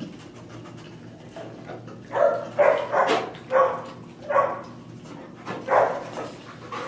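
A dog barking in a run of about seven short, loud barks, starting about two seconds in.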